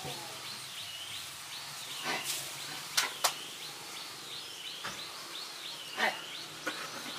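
Outdoor background of a bird's repeated high chirps in short runs, with two sharp clicks about three seconds in and a few duller knocks, the loudest about six seconds in.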